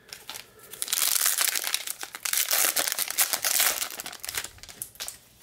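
Foil wrapper of a trading-card pack being torn open and crinkled in the hands: a dense crinkling and crackling from about a second in, dying away shortly before the end.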